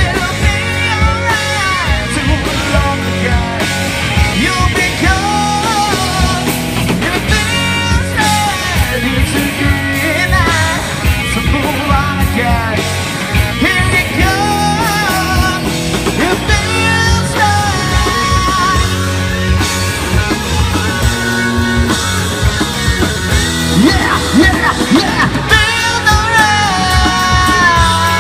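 Rock band playing a song live: guitars, bass and drums, with a melody line that bends and slides in pitch.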